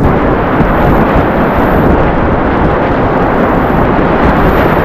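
Whitewater rapids rushing and churning right around a kayak in a rocky, low-water creek: a loud, continuous noise, heaviest in the low end, with no break.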